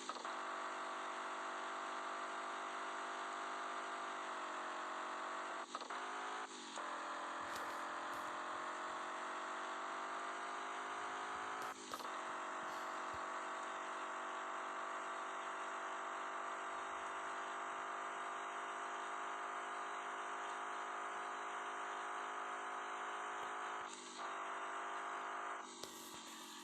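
A vehicle engine running at a steady speed, an even hum whose pitch dips slightly a couple of times, with a few short clicks.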